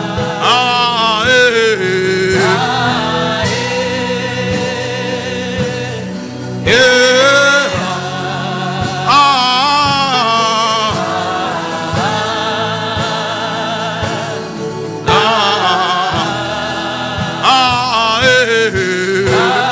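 Gospel music: sung vocals over band accompaniment with a steady beat.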